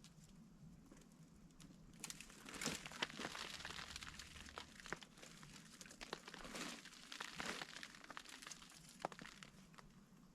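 Irregular crinkling and rustling with many small crackles and snaps, starting about two seconds in and dying down near the end.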